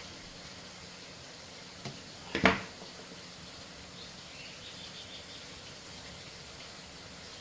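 A single sharp knock about two and a half seconds in, with a smaller click just before it, over a steady faint background hiss.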